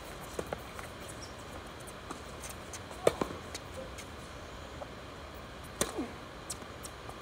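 Tennis ball pops off racquets and bounces on a hard court: a few sharp single hits, the loudest pair about three seconds in, and a serve struck just before the end.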